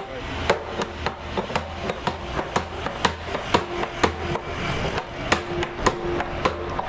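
Hammer striking a hoop driver held against the steel hoop of a wine barrel, driving the hoop along the staves: a steady run of sharp metallic blows, about three a second.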